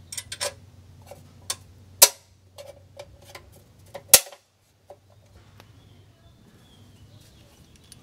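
Metal hold-down bracket and small fasteners clinking and clanking as they are set onto a marine engine's flame arrestor by hand: a few light clicks, then two sharper clanks about two and four seconds in.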